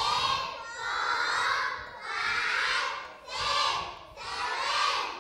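A class of young children chanting in unison, one long shouted syllable about every second, counting out a team's score aloud.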